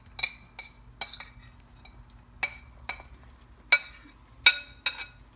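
Metal spoon clinking against the rim of a ceramic plate while scraping ground pine nuts off it into a pan: about nine sharp, ringing clinks at irregular intervals, the loudest in the last two seconds.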